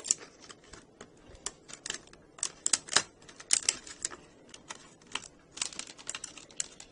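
Irregular sharp plastic clicks and taps from laptop parts being handled and pulled apart, some coming in quick runs.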